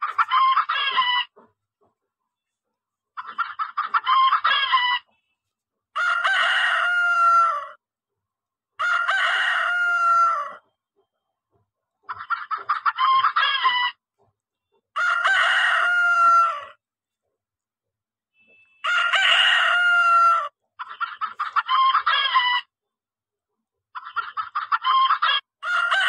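Roosters crowing and hens cackling in turn. There are four long crows and five fast runs of clucking, each about two seconds long, with complete silence between them.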